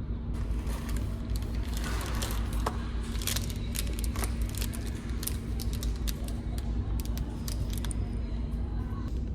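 Steady low drone of a ferry's engines with a constant hum. Over it comes a run of small clicks and crackles from something being handled, which stops about a second before the end.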